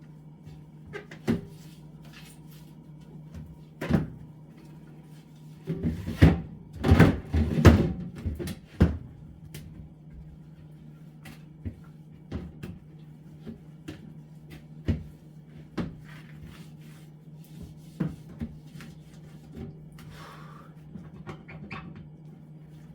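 Plastic fridge shelves and drawers being tugged and handled while they are cleaned: scattered knocks and clicks, with a burst of rattling clatter between about six and nine seconds in. A steady low hum runs underneath.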